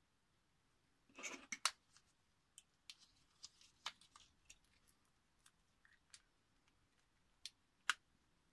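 Scattered sharp clicks and light taps of small metal and plastic parts being handled while a screw on a 3D-printed differential hub is turned with a folding hex key. A short rustle comes about a second in, with two sharper clicks near the end.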